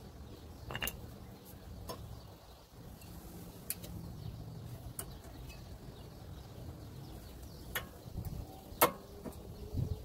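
Scattered light clicks and knocks of brake pads being handled against the caliper bracket and disc rotor, the sharpest about nine seconds in, over a low background rumble.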